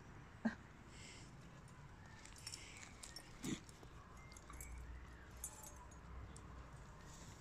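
Two dogs play-wrestling on grass, with two short dog vocal sounds: a sharp one about half a second in and another about three and a half seconds in, over faint rustling.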